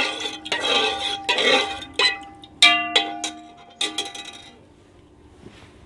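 Metal spoon stirring coloured liquid in an aluminium pot. About two seconds of sloshing and scraping, then several clinks of the spoon against the pot, each ringing on briefly.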